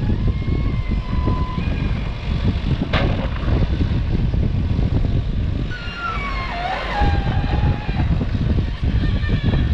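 Backhoe loader's diesel engine running as it digs through a sandbar, a steady low rumble.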